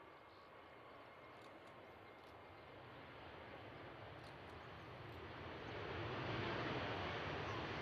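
Jet engines of an Airbus A320-200 rolling along the runway: a steady rushing noise that grows louder as the airliner comes closer, loudest from about six seconds in.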